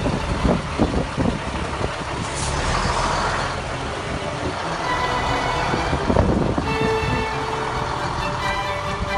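DAF 3600 ATi truck's six-cylinder turbo-diesel engine running as the truck moves off, with a burst of air hiss a little over two seconds in. Steady tones, likely music, sit underneath.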